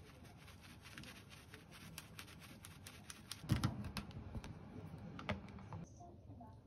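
Furikake flakes being shaken from a small packet onto rice in a plastic lunch container: faint rapid light clicking and rustling, with one thump about three and a half seconds in.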